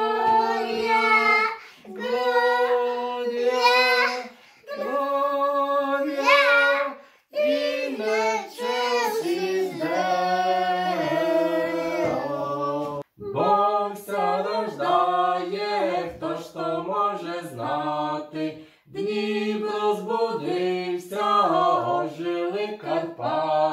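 A man, a woman and a child singing a Christmas carol unaccompanied, their voices together. After an abrupt break about halfway through, a man and a woman sing on alone.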